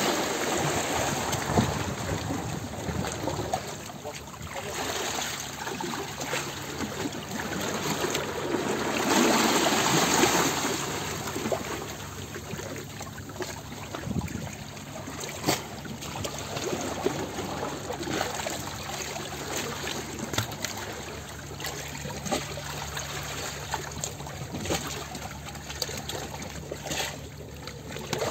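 Water splashing and trickling, swelling into a louder rush of water about nine seconds in that eases off a couple of seconds later, with scattered small splashes and drips.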